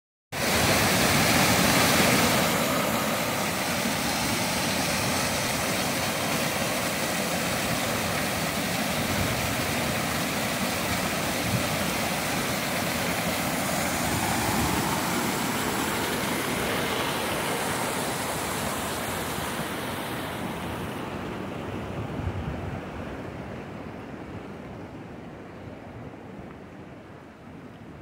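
Small mountain waterfall cascading over rocks: a steady rush of white water, fading over the last several seconds as it recedes.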